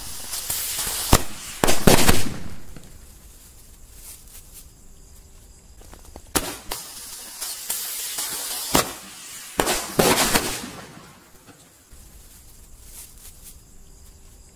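Fireworks combo of six rockets around a sky shot going off: sharp bangs over a hissing rush of sparks, in two bursts about six seconds apart, the second dying away near the end.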